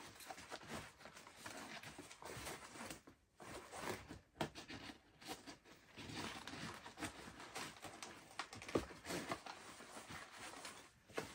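Nylon pouch fabric and MOLLE webbing rustling and scraping as a US Army water bottle pouch's straps are worked into the webbing of a pack, with scattered small clicks and one sharper knock about nine seconds in.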